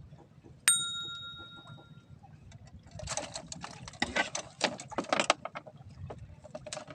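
A small metal bell dings once, ringing out for about a second and a half. A couple of seconds later comes a stretch of rustling and clattering handling noise.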